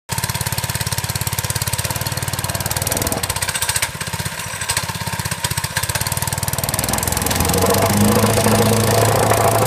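Honda gasoline engine on a Wacker vibratory plate compactor running at idle with a rapid, even chug, then throttled up about seven seconds in, growing louder into a steady hum as the plate starts to vibrate.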